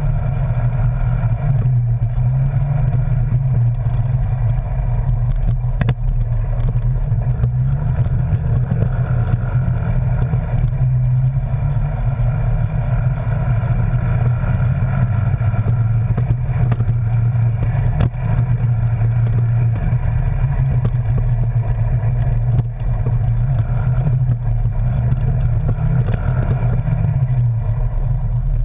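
Arctic Cat Wildcat Sport side-by-side's engine running steadily at a constant low drone as the machine drives along a rough dirt trail. A couple of sharp knocks come through, about a third of the way in and again past halfway.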